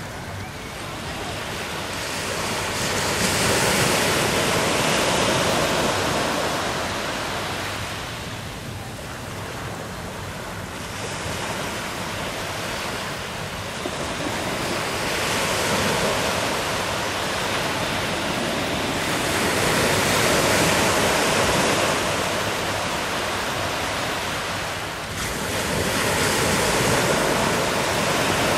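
Sea waves breaking and washing, the rush swelling and fading about every five or six seconds, with wind on the microphone.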